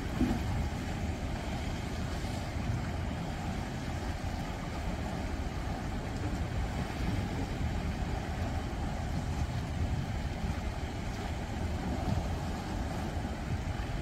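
Sea waves washing against breakwater rocks, a steady low rushing with no separate crashes standing out.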